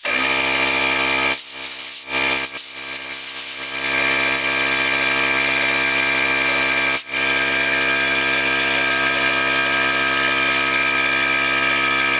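Electric air compressor's motor kicks on abruptly and runs steadily with a constant pitch, dipping for a moment a few times. This is the pump refilling the tank after air has been drawn off to inflate a bicycle tire.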